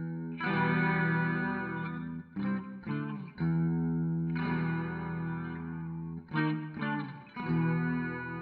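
Jackson Dinky JS22 electric guitar played on a clean amp tone: full chords left to ring for a second or more, with quick short strums between them. The last chord fades away at the end.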